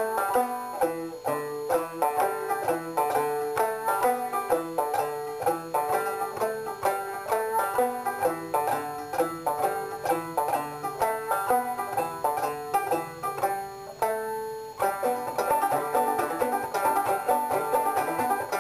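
Background music of fast-picked banjo in a bluegrass style, with a short break about fourteen seconds in.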